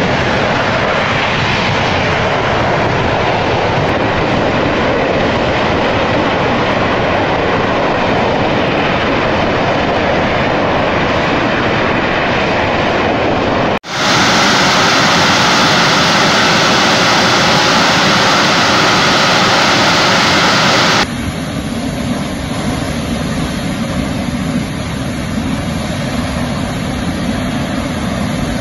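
Steady roar of high-pressure gas rushing from blown-out oil and gas wells, in three stretches. A burning well jet roars for about fourteen seconds. After a short dip comes a louder, hissier blast of escaping gas, and about seven seconds later a duller roar.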